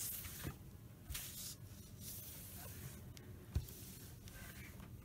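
A clothes iron pressing and sliding over quilt fabric: faint soft swishing rubs of the soleplate on cloth, with a small knock about three and a half seconds in.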